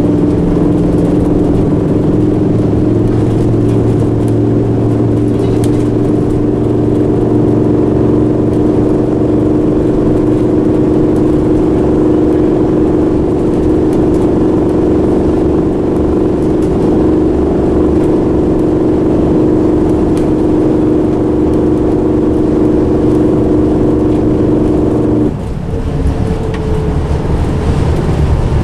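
Volvo B10M bus's underfloor six-cylinder diesel pulling steadily at an even pitch, heard from inside the saloon as the bus drives along. About 25 seconds in, the engine note drops suddenly and the sound gets quieter.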